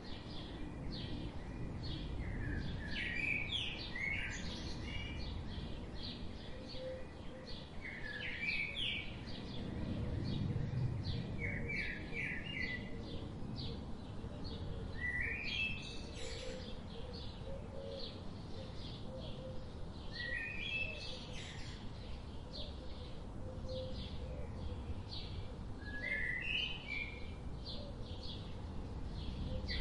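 Forest ambience: small birds chirping in short phrases every few seconds, with many quick high ticks between them, over a steady low background rumble that swells briefly about ten seconds in.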